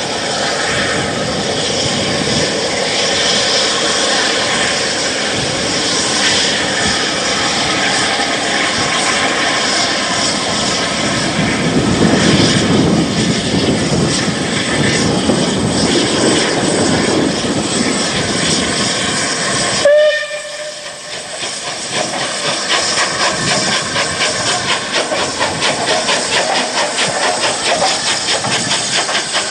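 Rebuilt Bulleid West Country class steam locomotive 34027 Taw Valley working up a bank, its exhaust and steam sounding continuously, with a brief whistle note about twenty seconds in. After that the exhaust beats come close and rapid as it passes.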